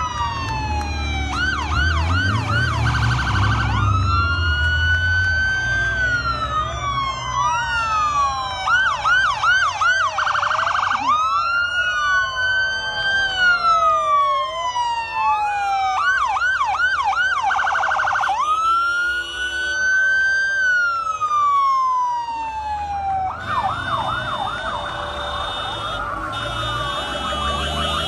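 Several vehicle sirens of a passing convoy sounding together, long rising-and-falling wails broken by stretches of fast yelping, over the low rumble of engines going by.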